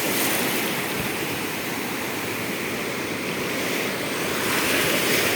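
Stormy sea surf breaking and washing up the beach: a steady rushing wash that swells a little near the end.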